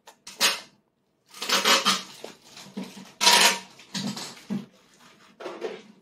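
A toddler slurping and sucking food into her mouth from training chopsticks: a few short, noisy slurps, the loudest about three seconds in.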